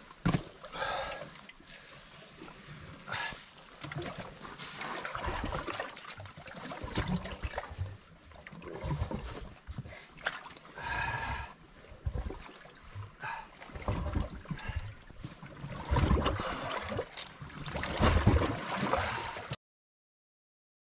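Shallow seawater sloshing and splashing against shoreline rocks as a large common skate is held and stirs in the water, in irregular bursts. The sound cuts out abruptly near the end.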